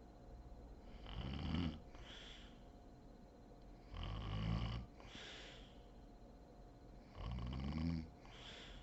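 A sleeping woman snoring: three low snores about three seconds apart, each followed by a shorter breathy exhale.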